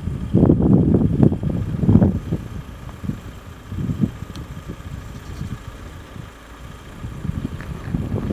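Wind buffeting the camera microphone in irregular low gusts, heaviest in the first two seconds and easing in the middle.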